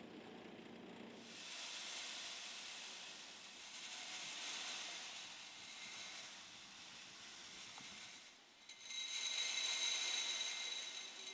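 A steady airy hiss with a faint high whine in it, swelling at times and loudest over the last two seconds after a brief dip.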